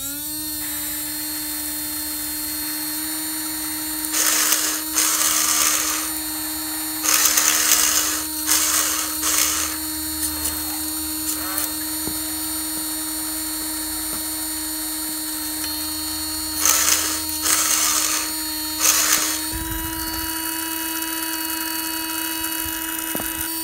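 Small electric water pump on a custom RC fire truck starting up and running with a steady whine, stepping slightly higher in pitch near the end. Over it come several loud bursts of hissing as the water jet hits the burning sticks in the fire pit.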